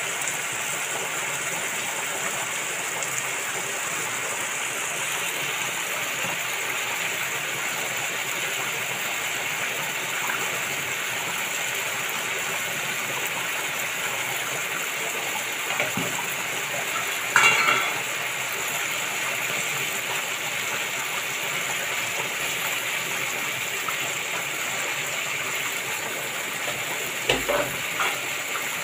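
Beef and potato fries sizzling steadily in a pan. A metal utensil clinks against the pan about 17 seconds in and a few times near the end.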